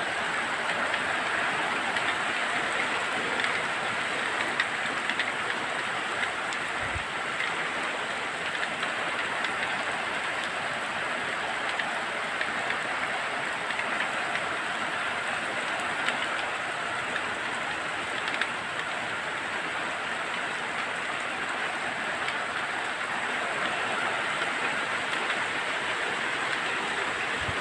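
Heavy rain falling steadily on sheet-zinc roofing, a dense even hiss with small scattered drop ticks.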